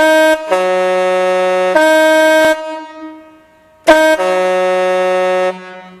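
Compressed-air ship horns (typhons) sounding two long blasts, the first about two and a half seconds and the second about a second and a half. In each, the chord changes shortly after the start as a lower-pitched horn joins the higher one, and each blast trails off in an echo.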